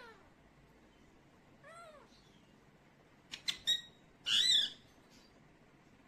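A kitten mews twice, short rising-and-falling cries at the start and about two seconds in. Later come a few sharp chirps and then one loud, harsh screech, the loudest sound, about four seconds in.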